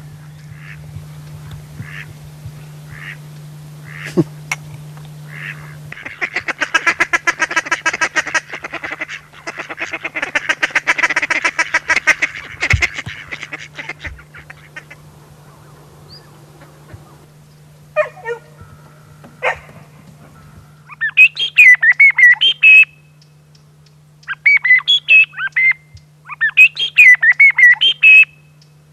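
Ducks quacking: scattered quacks, then a dense run of rapid quacks for several seconds. Near the end, a hand-held bird call (appeau) is blown in three loud groups of quick chirping notes that rise and fall in pitch.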